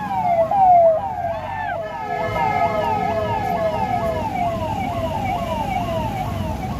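Emergency vehicle siren sounding in a fast yelp, its pitch sweeping up and down about twice a second. Midway a vehicle horn is held steadily for about two seconds.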